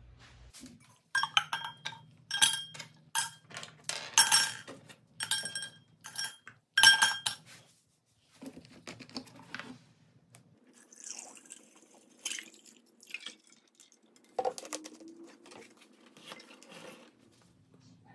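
Yellowed plastic toy parts dropped one by one into a glass jar, a dozen or so sharp clinks ringing off the glass in the first seven seconds. Then hydrogen peroxide is poured in over them, softer liquid sounds with a single knock partway through, as the parts are set to soak for whitening.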